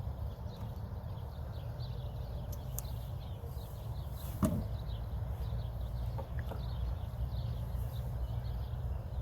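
A single sharp knock about halfway through, over a steady low rumble, with small birds chirping repeatedly in the background.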